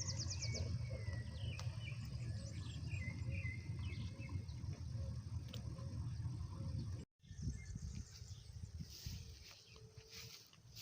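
Outdoor rural ambience: birds calling in short chirps over a low steady rumble, with a high rapid trill at the very start. About two-thirds of the way through the sound cuts off sharply and is followed by quieter scattered clicks.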